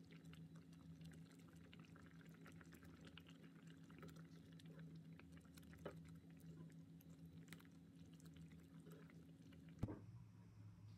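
Near silence: room tone with a steady low hum and faint scattered crackles, and a sharp click about ten seconds in.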